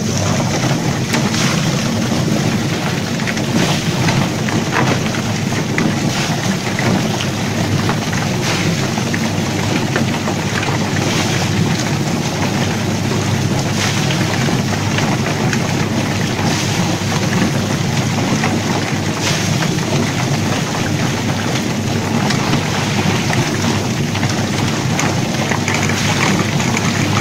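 Drum-type chicken plucker for 18 birds running under load: its motor hums steadily under a loud rushing, churning noise as the birds tumble against the rubber fingers, with scattered knocks and slaps throughout.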